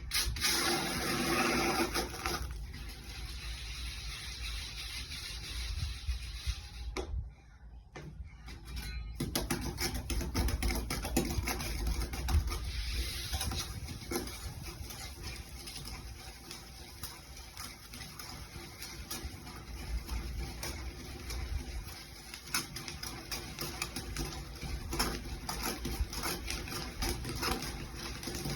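Dried peas (pattani) crackling and popping as they cook, a dense run of small sharp pops that drops away briefly about seven seconds in.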